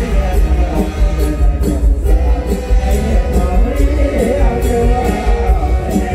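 Live mor lam band playing a toei tune: loud amplified music with a heavy bass and a steady percussion beat.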